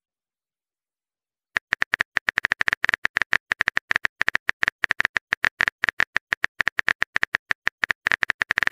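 Rapid key-press clicks of a phone's on-screen keyboard as a text message is typed, several a second, starting after about a second and a half of silence.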